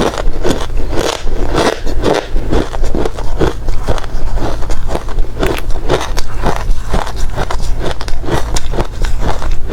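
Hard ice being bitten and chewed close to the microphone: a rapid, uneven run of loud crunches, several a second, over a faint steady low hum.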